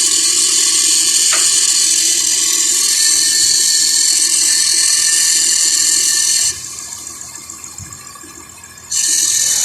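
A running 3.3-litre 3MZ-FE V6 in a 2006 Lexus ES 330 with a loud, high-pitched metal-on-metal grinding from the alternator area. The cause is a wrong-size upper alternator bracket bolt that is not screwed all the way in. The sound drops off sharply about six and a half seconds in and comes back near the end.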